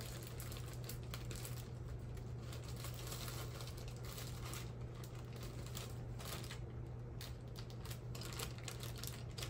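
Faint rustling and crinkling of plastic packaging being handled, with scattered small clicks, over a steady low hum.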